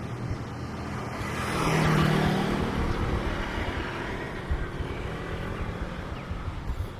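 A motor vehicle passing close by, growing louder to a peak about two seconds in and then fading away.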